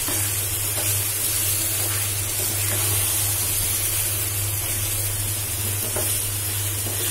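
Chicken pieces sizzling in mustard oil and spice paste in a frying pan, with a spatula stirring and scraping now and then. This is the bhuna stage, the meat being fried down with only a little water. A steady low hum runs underneath.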